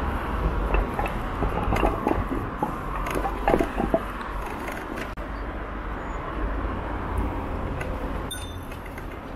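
Steady low rumble of road and wind noise while riding along a street, with a run of short knocks and rattles about two to four seconds in.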